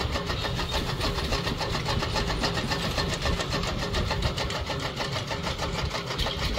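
Motor-driven chaff cutter running and chopping green cane stalks as they are fed in, a steady machine run with rapid, regular chopping strokes.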